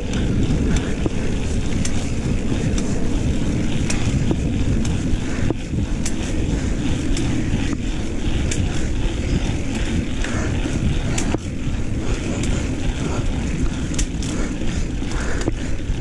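A YT Jeffsy mountain bike rolling on pavement: steady tyre rumble and wind buffeting the camera microphone, with scattered sharp clicks and rattles from the bike over bumps.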